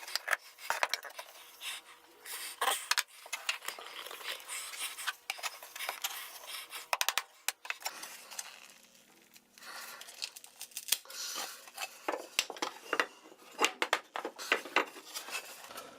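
Wood chisel working between a glued drawer front and false front, prying and scraping with irregular clicks and scrapes of steel on wood as the glue joint is worked apart.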